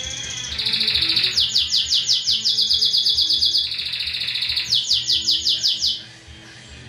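Domestic canary singing: loud fast trills of rapidly repeated high notes in two long runs, the song stopping about six seconds in.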